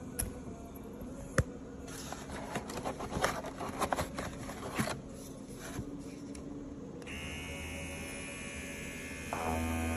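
Handling of the PETKIT pet clipper and its plastic box tray, with scattered clicks and one sharp click. About seven seconds in a steady electric buzz starts, the clipper's small motor running, and grows louder just before the end.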